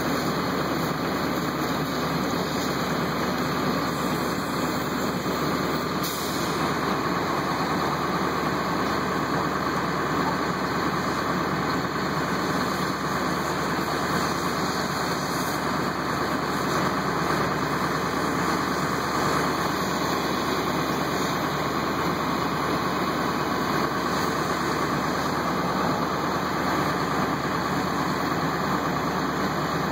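Fire engine's engine running steadily while it pumps water to a hose line, a continuous even noise with no breaks.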